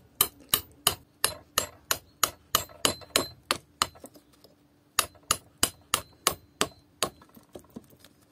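A small hammer striking a small steel chisel in quick, even taps, about three a second, driving copper winding wire out of the slots of an electric motor's laminated steel stator. The taps stop for about a second midway, then resume and grow lighter near the end.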